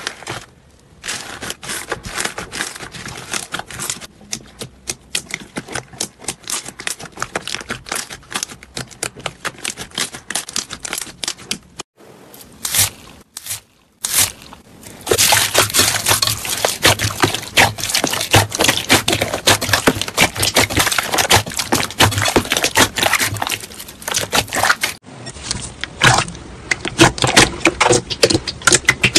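Crunchy slime being squeezed and pressed by hand, giving dense crackling and clicking, in several short clips that change abruptly, the middle one louder than the rest.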